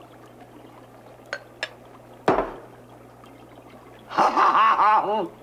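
Lab glassware clinking lightly twice as the potion is mixed, then a sudden sound that drops sharply in pitch. Near the end comes about a second of a loud pitched sound that wavers up and down.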